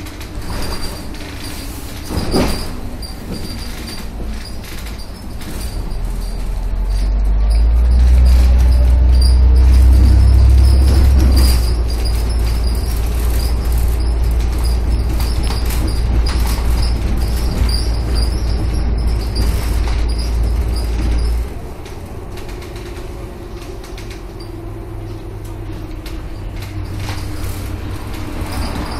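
Van Hool AG280 articulated bus heard from inside its rear section while under way: a deep engine drone builds from about six seconds in, holds strongly, then drops off suddenly about twenty seconds in. Body panels and fittings rattle throughout, with a single knock about two seconds in.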